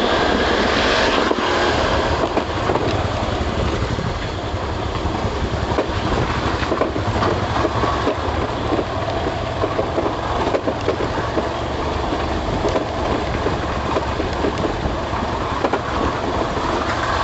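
Steady rushing noise of a scooter on the move: wind on the microphone mixed with the engine, with frequent small knocks and rattles.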